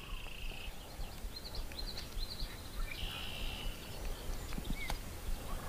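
Birds calling: scattered short high chirps and, twice, a flat buzzy note lasting about half a second. A low steady rumble of wind on the microphone runs underneath.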